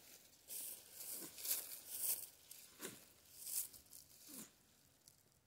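Dry grass rustling and crackling in several short bursts, with three brief low grunts that fall in pitch in between.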